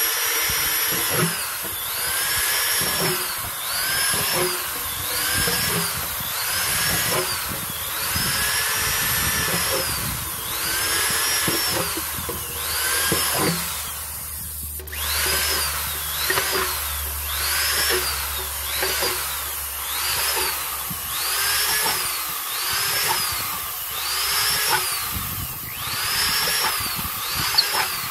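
Corded electric drill boring holes in a large plastic water jug, run in short trigger bursts: its motor whine rises, holds and drops away about once a second, over and over.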